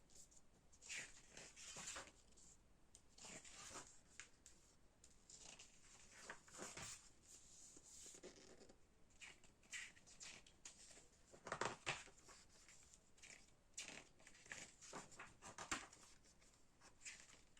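Faint rustling and soft clicks of a K-pop album's photo book being handled, its pages turned one after another.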